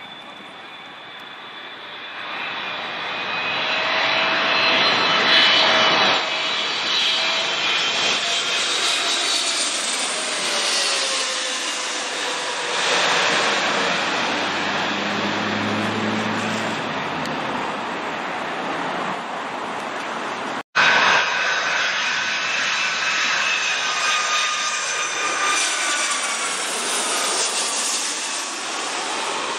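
Twin-engine jet airliners on final approach passing close overhead: a steady engine roar, with whining tones that slide down in pitch as each aircraft goes by. The first pass builds up over the first few seconds. A sudden cut about two-thirds of the way through starts a second pass.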